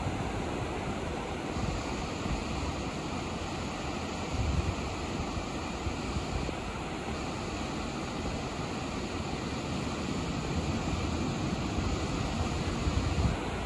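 Ocean surf breaking and washing up the beach in a steady rush. Wind buffets the microphone with low rumbling gusts about four seconds in and again near the end.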